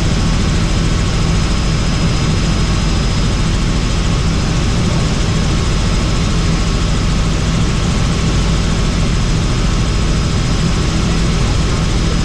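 Helicopter running steadily in flight: a loud, unbroken drone of engine and rotor, with a faint steady high whine above it.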